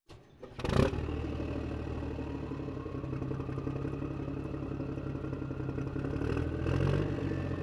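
A sharp clatter about a second in, then an engine running steadily at idle, swelling slightly near the end.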